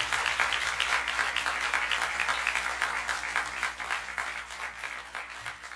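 Audience applauding in a small live-music club after a rock song ends, dense clapping that gradually dies away.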